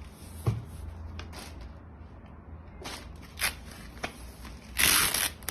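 Handling of a spray mop's plastic plate and mop cloth: a few scattered clicks and taps, then a louder rustling scrape about five seconds in.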